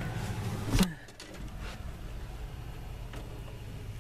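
Steady electric motor hum of a running exhaust fan. About a second in there is a thump, after which the hum is much quieter, with a few faint clicks.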